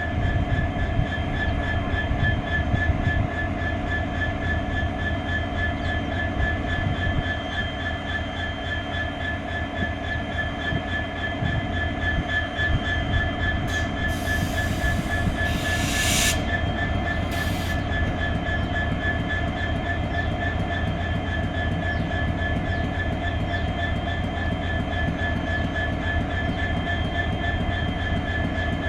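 Indian Railways WDG4 diesel-electric locomotive idling, its EMD 16-cylinder two-stroke diesel engine humming steadily with a low rumble and a constant high whine. A brief hiss comes about halfway through.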